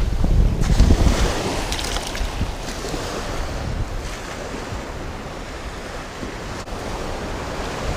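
Ocean surf breaking and washing up the beach, with wind buffeting the microphone as a low rumble that is heaviest in the first second or so and then eases.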